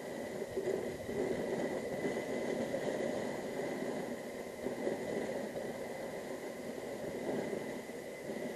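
Wind and road noise on the microphone of a moving motorcycle: a steady, rushing hiss that rises and falls slightly, with a faint steady high tone running under it.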